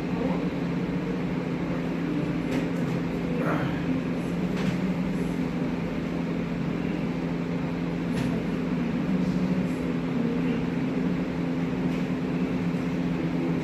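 A steady mechanical hum holding two constant low tones, with a few faint clicks and knocks scattered through it.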